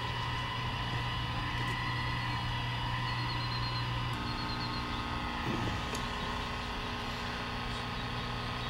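Vintage 1960 Olympic tube television running on a test-pattern signal: a steady electrical hum and buzz made of several held tones. About four seconds in the mix of tones changes.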